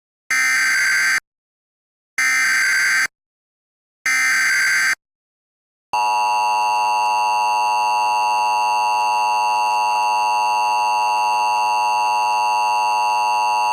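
Emergency Alert System tones: three short bursts of SAME digital header data, each just under a second and about a second apart, then the two-tone attention signal (853 and 960 Hz together), a steady, harsh alarm tone held for about eight seconds. The header and tone open a practice demonstration (DMO) alert.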